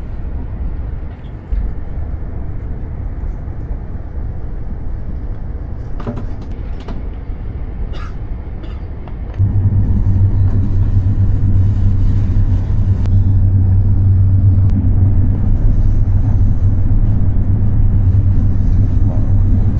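Cabin noise of a Chinese high-speed train running at speed, heard from inside the carriage: a steady low rumble that turns suddenly louder about nine seconds in and then holds a strong low hum.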